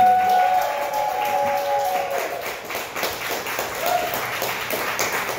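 Audience applauding. One voice holds a long, drawn-out call over the first two seconds.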